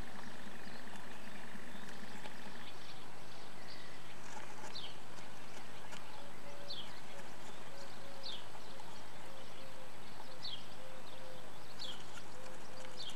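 Nestbox microphone hiss with faint short falling chirps every second or two from a bird, and a soft low note repeating about twice a second from about halfway in. Light shuffling from common swifts moving on their nest material.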